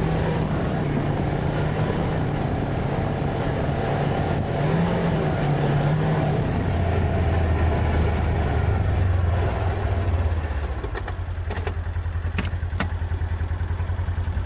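The engine of the vehicle being ridden runs under way, then drops in pitch about seven seconds in as it slows. It settles into a steady idle about ten seconds in, with a few sharp clicks near the end.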